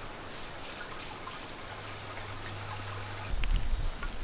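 Water being poured in a steady trickle, with a few low bumps about three seconds in.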